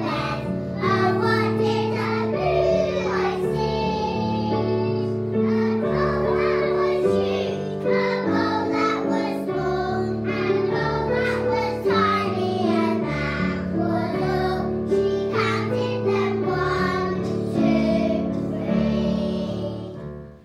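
A group of young children singing a song together over an instrumental accompaniment; the music stops at the very end.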